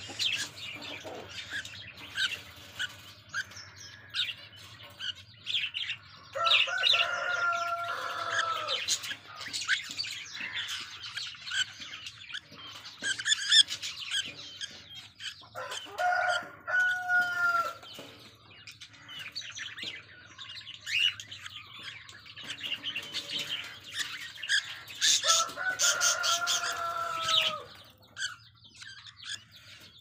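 Budgerigar chicks chirping and squawking while they are handled, with bursts of wing flapping. A rooster crows three times, each a long held call that falls in pitch at the end.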